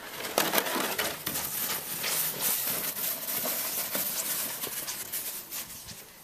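A plastic sledge scraping and hissing over snow as it is dragged on a rope, with footsteps crunching in the snow. The sound fades near the end.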